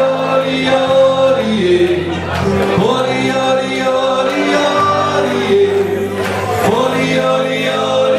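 Live Austropop/Bavarian pop band playing a song, with sung vocals over electric bass and keyboard, heard from among the audience in a reverberant hall.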